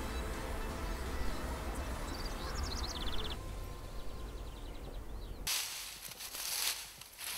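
Summer countryside ambience. A bird gives a short high trill about two and a half seconds in, then past the middle a loud, high-pitched buzzing of insects sets in suddenly and breaks off briefly near the end.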